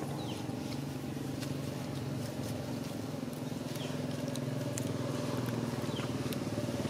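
A motor engine runs steadily with a fast even pulse and slowly gets louder toward the end. A few faint, short, high falling chirps sound over it.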